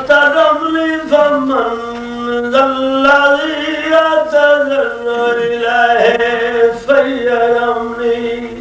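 A man chanting a slow melodic phrase in a few long held notes, his pitch stepping between them.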